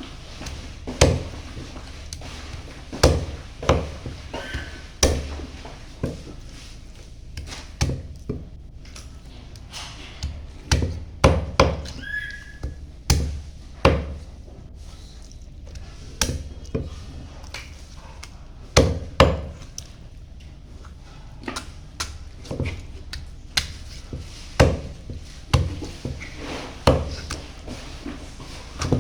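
Cleaver chopping through chicken on a chopping block: a run of heavy, irregular chops about once a second, sometimes two in quick succession.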